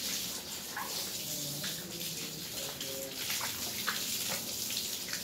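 Running water, heard as a steady hiss.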